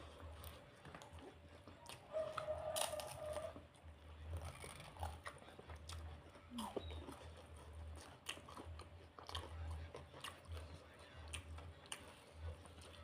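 Close-miked chewing and crunching of food, with many short crackly bites.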